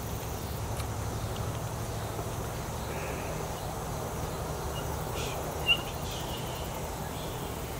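Quiet outdoor background with a steady low hum, and a single short bird chirp a little past the middle; no shot is fired.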